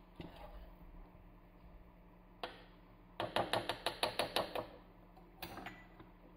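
Metal wire whisk tapped rapidly against the rim of a saucepan to shake off thick custard: a quick run of about ten sharp knocks lasting a second and a half, with a single knock before it and another about a second after as the whisk is set down.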